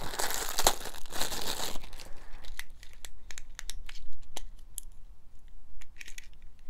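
A clear plastic bag crinkling and rustling as a plastic game-controller fidget pad is pulled out of it. After that comes a string of short, sharp plastic clicks as the pad's buttons and switches are pressed.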